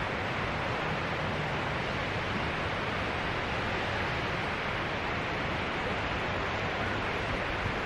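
Steady rushing noise of wind and waves on a rocky shore, with wind buffeting the microphone.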